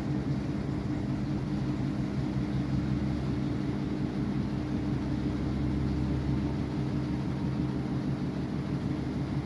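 Samsung washing machine running with a steady low drone and hum, without pauses.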